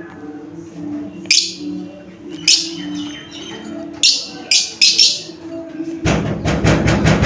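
Lovebirds chirping: several short, sharp chirps that slide downward in pitch, then, about six seconds in, a loud rapid rattling burst lasting nearly two seconds, over a low steady hum.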